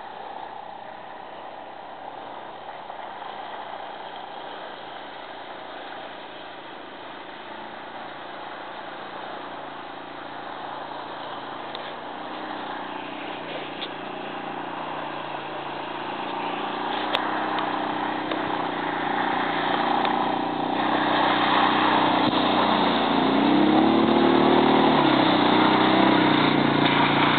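Atlas 500 ATV engine running as the quad draws steadily closer and louder, its revs rising and falling a few times near the end.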